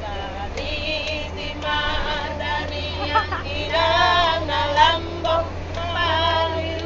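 Women singing together, with the steady low hum of the bus engine beneath.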